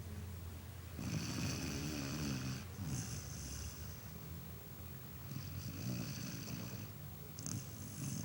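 A dog snoring in slow, long breaths, several in a row.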